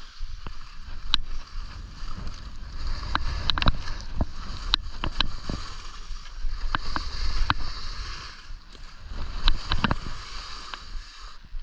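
Skis scraping and carving over packed snow, with wind rumbling on the microphone and scattered sharp clicks.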